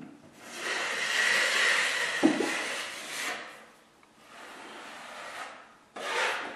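Steel drywall taping knife scraping joint compound along paper tape in an inside corner: one long stroke of about three seconds with a faint squeal from the blade and a knock about two seconds in, then lighter strokes and a short scrape near the end.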